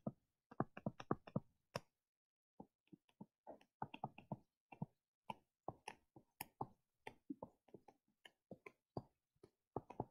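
Stylus tip tapping and clicking on a tablet screen during handwriting: a run of faint, irregular sharp ticks, with a short pause about two seconds in.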